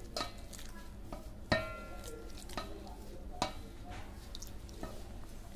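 Hands mixing wheat flour with oil in a stainless steel bowl: soft rubbing with several knocks against the bowl. The loudest knock, about a second and a half in, leaves the bowl ringing briefly.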